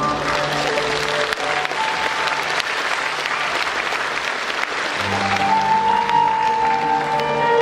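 Circus audience applauding, a dense patter of many hands clapping over the act's accompanying music. The clapping thins out near the end as the music grows louder again from about five seconds in.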